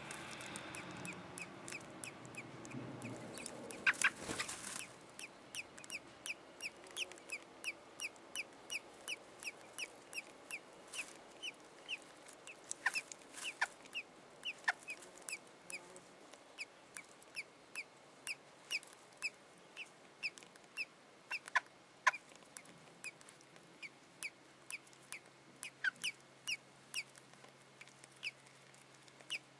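Robin calling: a short, high chirp repeated about twice a second, with a few sharper, louder chirps among them. Rustling and a quick cluster of knocks come in the first five seconds.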